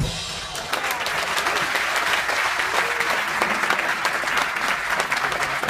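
Large audience applauding, breaking out suddenly and holding steady as a dense clatter of many hands clapping.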